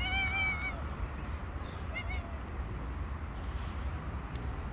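Young tabby-and-white cat meowing: one drawn-out meow at the start, then a short chirping meow about two seconds in, over a low steady rumble.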